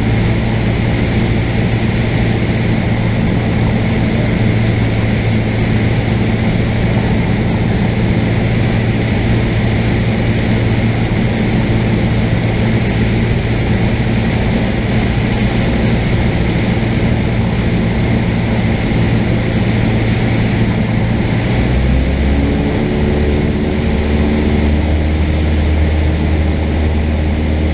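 Cessna 172's piston engine and propeller heard from inside the cockpit, running with a steady drone. About three-quarters of the way through, the engine note changes, its deepest tone dropping lower.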